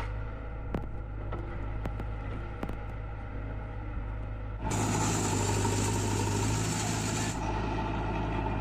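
Heavy diesel machine engine running steadily, with a few sharp knocks in the first three seconds. From about five seconds in a louder hissing noise joins it for about two and a half seconds, then drops away.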